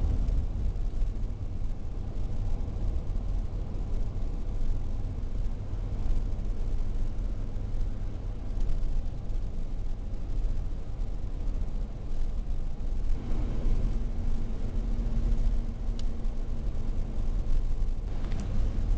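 Car driving at road speed, heard from inside the cabin: a steady low rumble of tyres and engine. About two-thirds of the way in, a faint steady hum joins it for a few seconds.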